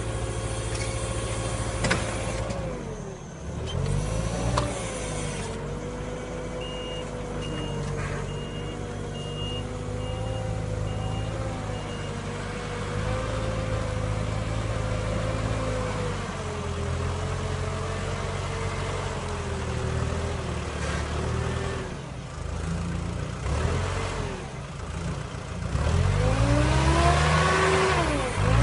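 Diesel engine of a Merlo telehandler carrying a Spedo Fruipick olive-tree shaker, running and changing revs as it manoeuvres. From about six seconds in, its reversing alarm gives a string of short beeps, about two a second, for some five seconds. Near the end the engine revs up sharply.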